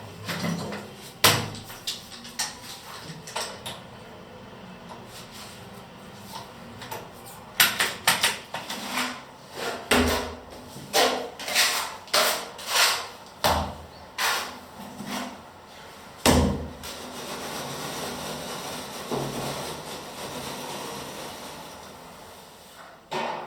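A series of sharp knocks and clatters, about a dozen hits clustered in the middle, followed by a steady hiss lasting several seconds.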